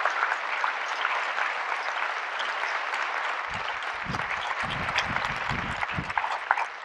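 A large audience applauding, a dense patter of many hands clapping that slowly dies away near the end.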